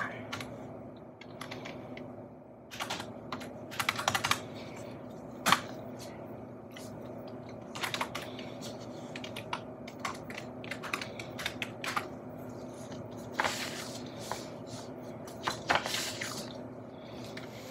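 Typing on a computer keyboard: irregular runs of key clicks with short pauses between them, over a faint steady hum.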